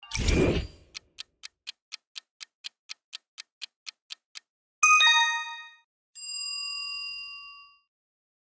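Quiz sound effects: a short whoosh, then a clock ticking about four times a second for about three and a half seconds as a countdown timer, then a bright chime and a held bell-like ding marking the end of the countdown.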